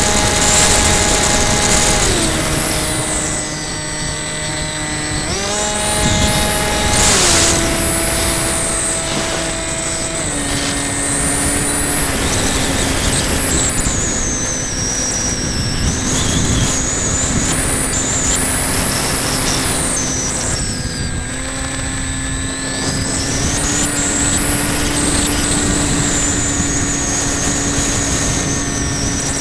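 Electric motor and propeller of a radio-controlled model plane, heard from a camera on board: a steady whine that steps up and down in pitch several times as the throttle is changed, with wind rushing past the airframe.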